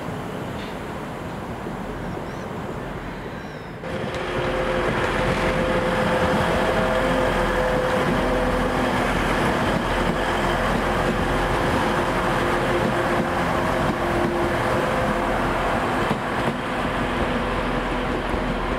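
A train running at a station platform: a steady engine or traction hum of several held tones over a rumble, which starts abruptly about four seconds in after a stretch of plain steady noise.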